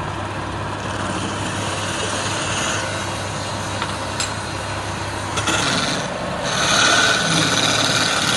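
Wood lathe's motor running with a steady hum while a hand chisel cuts into the spinning palm wood, the cutting hiss growing louder from about five and a half seconds in.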